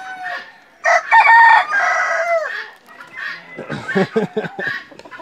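A rooster crowing, one long crow about a second in that drops in pitch at its end, followed by a run of short clucks from the chickens.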